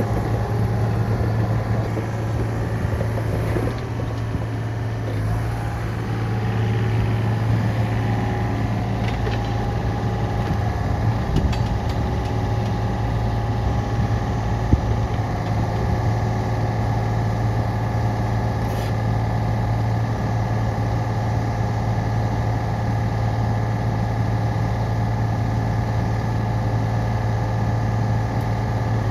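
Yanmar ViO35-6A mini excavator's diesel engine running steadily as the machine digs, with one sharp clank about halfway through.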